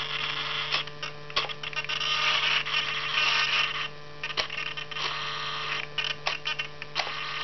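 Small RC servos in an XK A600 foam plane buzzing in short spells as the rudder and elevator are driven back and forth from the transmitter, with sharp clicks between spells. A steady electrical hum runs underneath.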